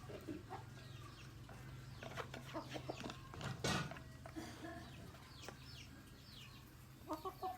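A flock of chickens calling and clucking, with many short, high calls that fall in pitch. There is one loud brief sound about three and a half seconds in, over a steady low hum.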